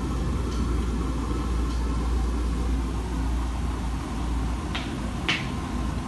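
Primus commercial front-loading washing machine running its wash cycle, the drum turning with a steady low rumble. Two short sharp clicks sound near the end.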